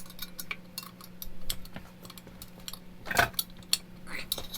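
Metal hand tools clinking and tapping on engine and transmission hardware: a scatter of sharp clicks with one louder clank about three seconds in.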